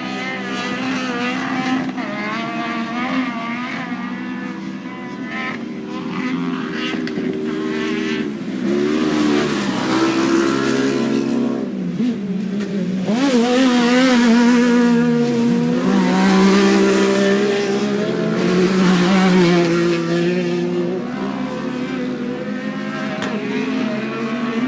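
Several non-turbo off-road race car engines running at once, revving up and down as the cars accelerate, brake and pass, loudest about halfway through.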